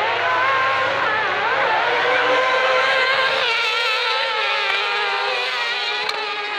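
Several autocross racing buggies' engines revving hard on a dirt track, their pitches rising and falling as they accelerate through the bend.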